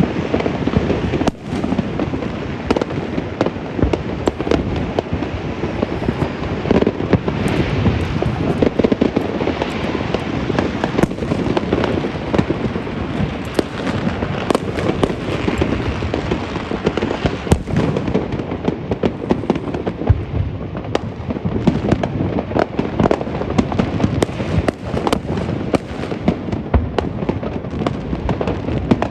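Fireworks and firecrackers going off without a pause: a dense, continuous crackle of many pops and bangs.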